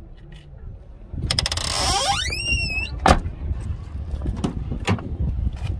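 Car door being worked: a quick rattle of clicks, then the hinge squealing and rising in pitch for about a second and a half, and a sharp knock about three seconds in as it shuts. A few lighter clicks follow.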